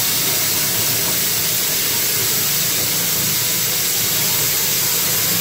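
Water running from a bathroom sink's mixer tap into a partly filled basin: a steady, even rush.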